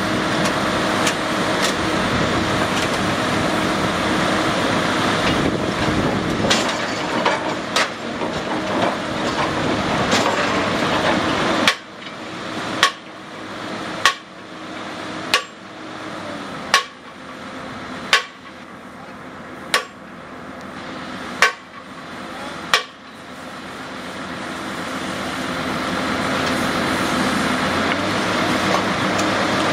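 Engine of a large piling drill rig running steadily, then dropping back about a third of the way in while a worker strikes steel with a hammer: about nine sharp blows with a short metallic ring, roughly one every one and a half seconds. The engine slowly builds up again near the end.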